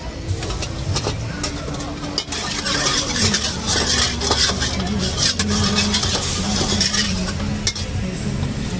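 Metal ladle scraping and clinking against a steel wok as oil sizzles in it, the hiss strongest in the middle and later part, over a steady low rumble.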